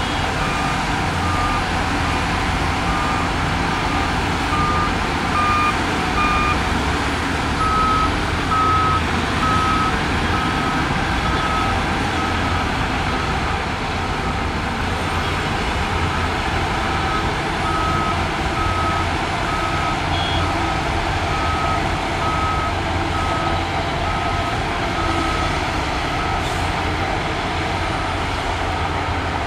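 Reversing alarm on heavy earthmoving equipment beeping steadily, a little more than once a second, over the low rumble of a diesel engine. The beeping stops a few seconds before the end. A second, higher-pitched beep joins briefly at the start and again about six seconds in.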